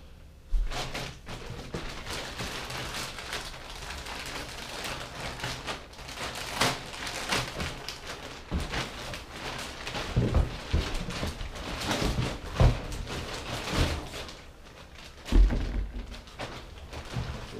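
Coolant hose kit being handled and taken out of its box: irregular knocks and thumps, with the heaviest thumps in the second half.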